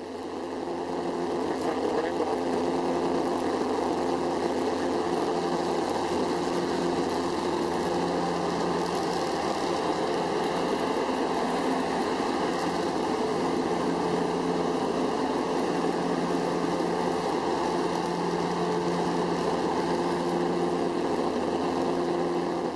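Cabin noise of a small high-wing propeller plane in flight: a steady engine and propeller drone with a low, slightly pulsing hum.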